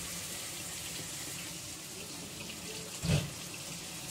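Onion-and-spice masala sizzling in a stainless-steel pan as a little water is poured in, a steady hiss. A dull knock comes about three seconds in.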